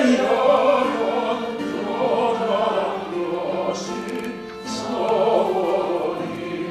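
A male classical singer sings a Korean song, accompanied by a small string ensemble of cello and violins.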